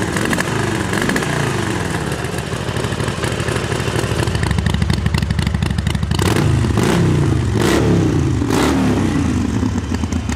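Harley-Davidson Sportster Forty-Eight's 1200 cc air-cooled V-twin, with a new exhaust system, running and being revved. About six seconds in come four quick throttle blips, the revs falling back after each one.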